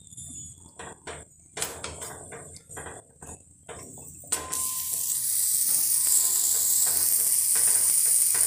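Paneer paratha frying in melting butter on a hot tawa: scattered crackles at first, then about four seconds in a loud, steady sizzle.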